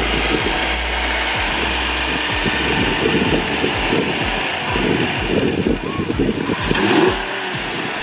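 Engine of a 2011 Volkswagen Passat CC, fitted with an aftermarket cone air filter, running with the hood open. It is revved up briefly about seven seconds in.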